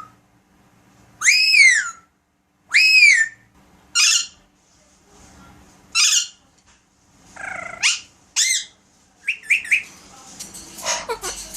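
Alexandrine parakeet calling: two loud arched whistles that rise and fall in pitch in the first few seconds, then harsh squawks at about four and six seconds, followed by rising whistles and a quick run of short chirps near the end.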